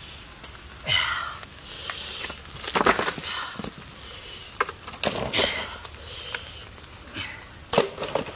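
Green bamboo sticks being pulled apart and handled, an irregular run of sharp knocks and cracks with rustling and scraping between them.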